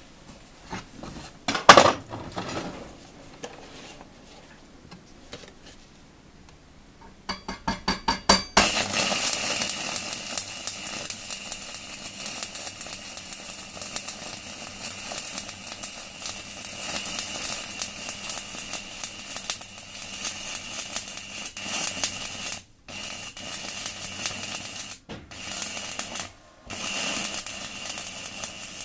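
Stick (MMA) welding arc from a 4 mm UONI electrode on a small welding inverter set to 160 A. A few rapid scratching strikes come about seven seconds in, then the arc catches and crackles and hisses steadily, cutting out briefly three times near the end. A single knock comes about two seconds in.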